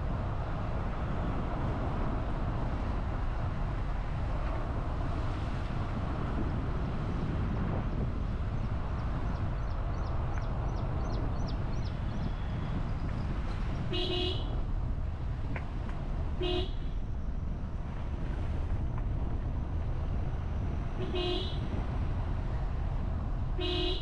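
Steady low road rumble of a moving car, with a vehicle horn tooted briefly four times in the second half.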